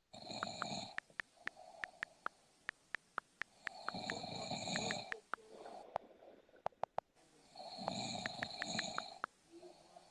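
A person snoring in their sleep: three snores about three and a half seconds apart, with sharp little clicks between them.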